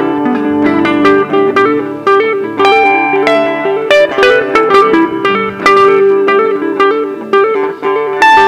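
Electric guitar playing a lead line of quick single picked notes, stepping up and down over lower sustained notes, with no singing.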